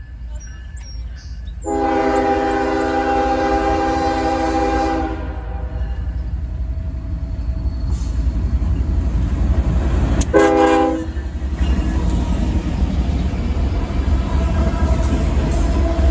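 Locomotive air horn sounding a chord of several notes: one long blast of about three seconds, then a short blast about ten seconds in. Both blasts sound over the low rumble of the moving train.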